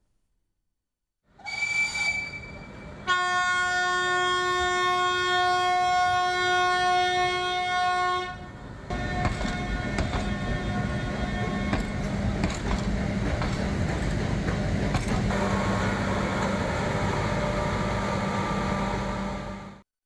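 A short high whistle, then the Nilgiri mountain railway train's whistle sounding one long steady blast for about five seconds. After it comes the train running, a steady rumble with scattered clicks from the wheels on the rails.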